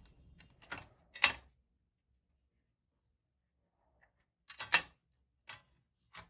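A few sharp, isolated clicks and taps from hands and tools working on a laptop's opened underside, prying at the inner cover over the RAM slot. The loudest clicks come about a second in and again near the end.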